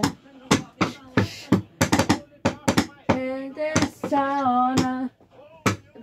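A voice holding sung notes, broken by sharp, irregular knocks and taps.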